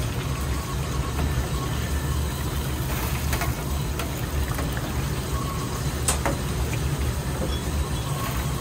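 Tempura sizzling in a commercial deep fryer's oil over a steady low kitchen rumble, with a sharp metal clink about six seconds in.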